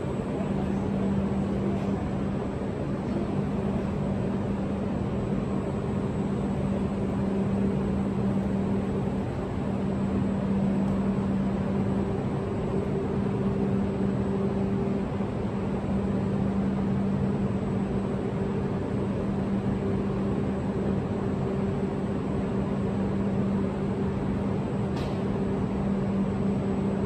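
Tohoku Shinkansen train standing at the platform, its onboard equipment giving off a steady low hum with an even rush of noise underneath.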